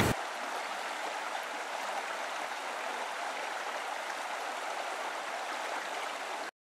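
Steady rushing of running water, like a stream, cutting off suddenly near the end.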